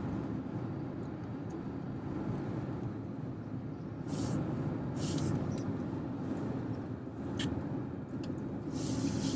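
Road and engine noise inside a moving car: a steady low rumble, with brief hissing swells about four, five and nine seconds in.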